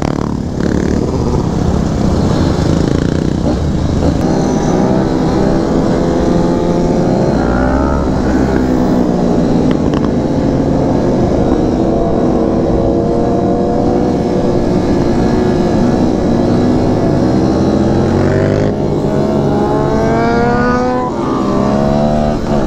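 Kawasaki Z125 Pro's small single-cylinder engine running under throttle on the move, its pitch climbing a few seconds before the end as it revs up, over wind rushing on the microphone.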